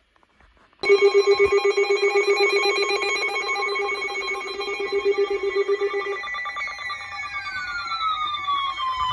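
An electronic alarm starts ringing suddenly about a second in: a loud, rapidly pulsing ring made of several steady tones. From about seven seconds in, falling tones glide down over it.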